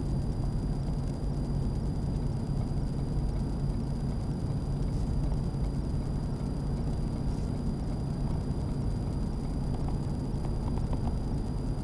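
Steady drone of a Ford F-350 diesel pickup at highway speed heard inside the cab: a constant low engine hum under even road and tyre noise.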